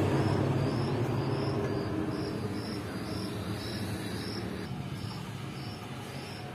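An insect, likely a cricket, chirping in a steady rhythm of high-pitched pulses about twice a second, over a low hum that fades away.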